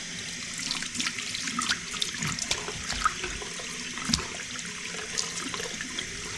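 Water rushing and splashing into a bathroom fixture and down a just-cleared drain, starting abruptly and running steadily for about seven seconds: a test that the unclogged drain now takes water freely.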